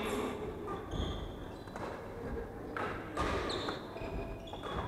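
Badminton play in a wooden-floored hall: a few sharp racket-on-shuttlecock smacks and footfalls, mixed with short high squeaks of court shoes on the floor.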